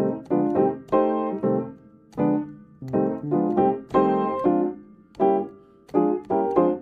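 Background piano music: single notes and chords struck one after another, about two a second, each dying away.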